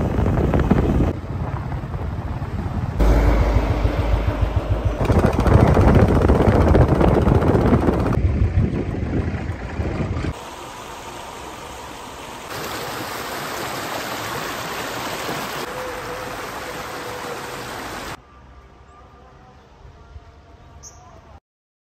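Wind rush and engine noise from a motorcycle ride, loud with a heavy low rumble for about the first ten seconds. After that it turns to quieter outdoor sound, changing abruptly every few seconds at cuts between clips.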